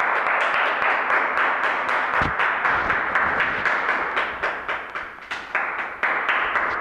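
Applause: many hands clapping at once in a dense, steady patter.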